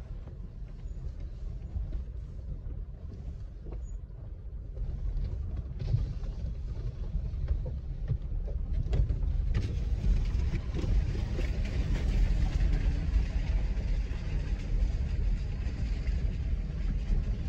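Vehicle cabin rumble while driving slowly over a rough, rocky unpaved track, with a few sharp knocks from the bumps. It grows louder and hissier about two-thirds of the way through.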